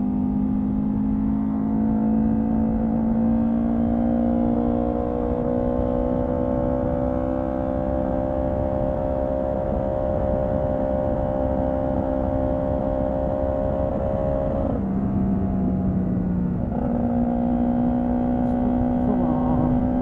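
Honda CB125T's parallel-twin engine running under way, its note creeping slowly upward over wind rush. About fifteen seconds in the note drops for a couple of seconds, then comes back up. It is running with the air cleaner removed, and the rider feels it hesitating a little.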